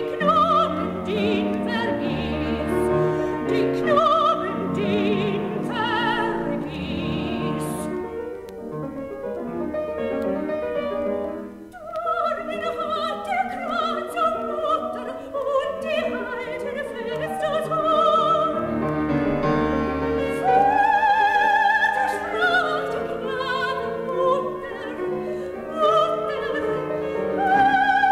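Soprano singing a German art song with piano accompaniment, played from a vinyl LP. Her voice has a wide vibrato. It drops out for a few seconds near the middle while the piano goes on, then comes back.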